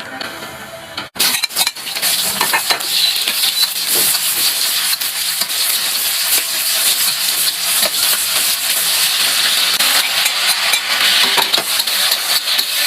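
Vegetables sizzling loudly in a hot pan as they are stir-fried, with small clicks and scrapes of the utensil against the pan. The sizzle starts about a second in and then runs steadily.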